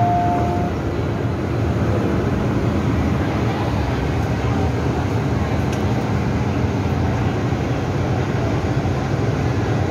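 Steady rumble of an MTR M-train passenger car heard from inside at the doors. Two clear electronic chime tones sound and end within the first second.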